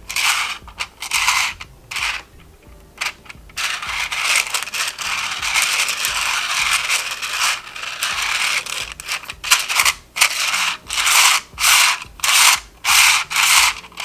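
Nested hexagonal rings of a handmade tilt-and-slide fidget toy sliding and scraping against each other and the base as it is tilted. It makes a series of dry rasps that grow quicker, about one or two a second, near the end.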